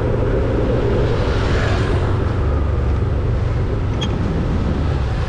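Steady low rumble of engine and road noise from a vehicle driving along a town street, with passing motorbike traffic mixed in. A brief high chirp sounds about four seconds in.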